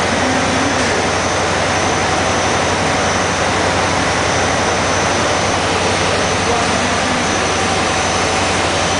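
Double twist bunching machine (AYMAK DTB-1000) running at speed, its rotor spinning fast: a loud, steady whirring hum with a faint constant high whine, unchanging throughout.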